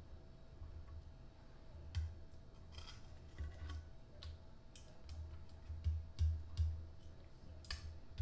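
Stainless steel tongs clicking and knocking against a glass baking dish as saucy spare ribs are turned, a few sharp irregular clicks over low soft thumps.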